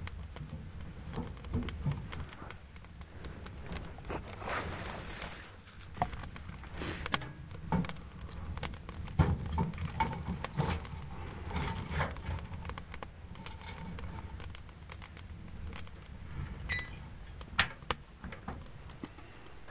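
Split firewood being loaded into a Kni-co Alaskan sheet-steel woodstove: irregular knocks and clatters of logs against each other and the firebox. The stove door is pushed shut near the end with a sharp clank.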